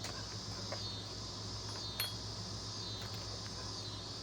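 Insects chirping, a high trill that swells and fades about once a second, over a low steady hum, with one sharp click about two seconds in.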